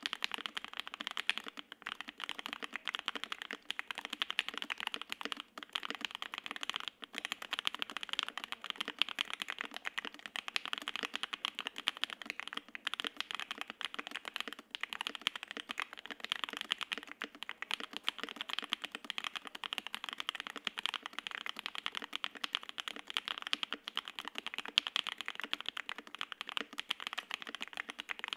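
Fast, steady typing on a foam-dampened gasket-mount mechanical keyboard: lubed Alpaca V2 linear switches on an FR-4 plate under double-shot ABS keycaps, giving a rapid stream of soft clacks with no switch clicks.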